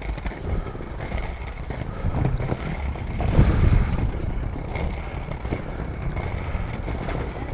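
Wind rumbling on the microphone and the rolling noise of inline skate wheels (four 100 mm wheels) on pavement during street skating, swelling louder a little past three seconds in.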